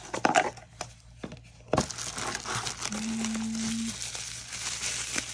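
Plastic bubble wrap crinkling and crackling as hands handle and unwrap it, dense from about two seconds in, after a few sharp knocks and clicks of handling.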